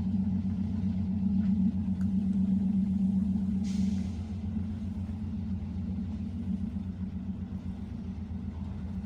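Steady low rumble of a moving train, heard from on board, with a brief hiss about four seconds in, after which the rumble becomes slightly quieter.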